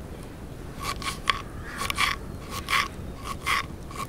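A kitchen knife slicing a raw carrot into rounds on a wooden chopping board: a series of crisp, crunchy cuts, each ending in a light knock of the blade on the board, starting about a second in and coming in quick runs.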